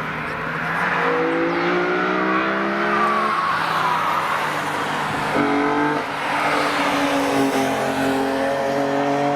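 A car accelerating hard on a wet track, its engine note climbing in pitch and dropping back at gear changes about three and five and a half seconds in, over a steady hiss of tyres on wet tarmac.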